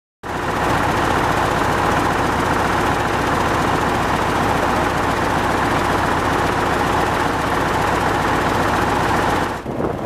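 Heavy diesel engine running steadily at a constant speed, stopping abruptly near the end.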